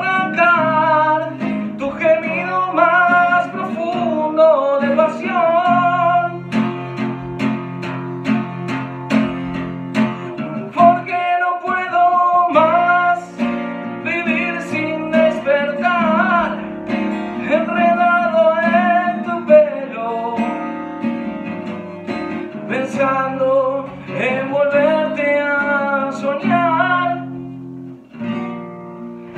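A man singing a slow ballad to his own acoustic guitar. For a few seconds near the middle the voice rests and only even guitar strums are heard.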